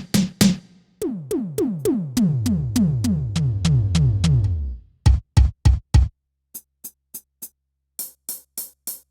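Electronic drum kit played on its electronic preset: a fill of about a dozen synth tom hits, each sliding down in pitch and stepping from high toms to low. Four deep hits follow, then short sharp high ticks and a few brighter hits near the end.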